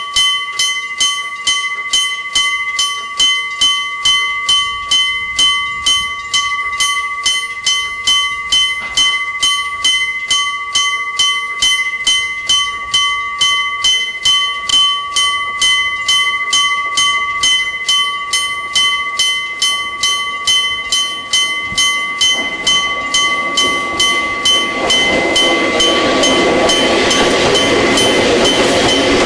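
Japanese railway level crossing's electric bell, a gong struck by an electric hammer, ringing in an even series of two to three strikes a second. About 22 seconds in a train's rumble begins to build, and from about 25 seconds the passing train is louder than the bell, which keeps ringing.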